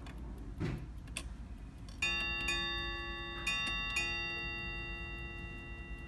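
Brass Chelsea Ship's Bell clock striking four bells in two pairs, each strike ringing on and slowly fading: the ship's-bell count for two o'clock. A couple of light clicks come about a second before the first strike.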